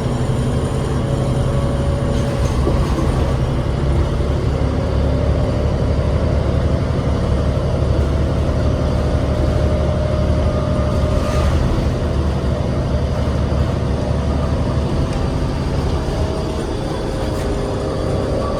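Inside a 2008 New Flyer D40LF transit bus under way: the Cummins ISL 8.9-litre six-cylinder diesel drones steadily with road and cabin rumble, easing off slightly near the end.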